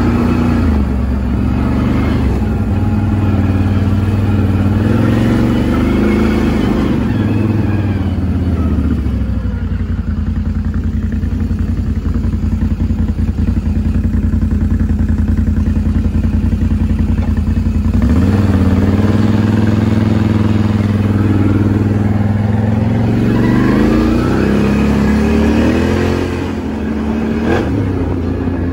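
ATV engine running while riding, revving up and falling back several times, with a steadier stretch at lower revs in the middle.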